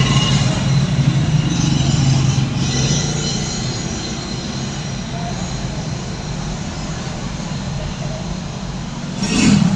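A steady low mechanical rumble with a hum, easing a little after the first few seconds, then a short louder burst of noise near the end.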